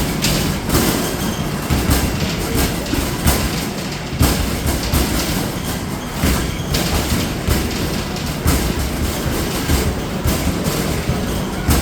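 Basketballs hitting the backboard and rim of an arcade basketball machine and rolling back down its return ramp: a knock every half second to second over a steady low rumble.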